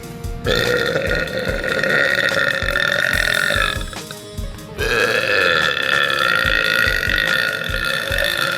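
A girl letting out two long, loud burps, each held for three to four seconds, with a short break between them.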